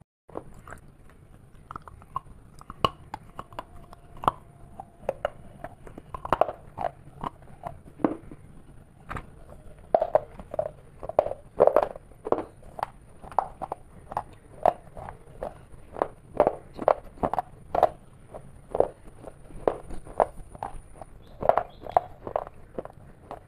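Close-miked chewing of crisp food: an irregular series of sharp crunches, about one or two a second, as crisp brown pieces dipped in a creamy dessert are bitten and chewed.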